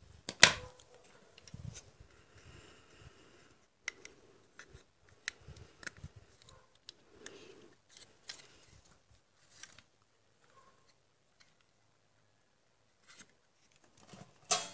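Sharp clicks and knocks, with soft rustling in between, as a monitor circuit board and tools are handled on a workbench. The loudest knock is about half a second in, and another strong one comes near the end.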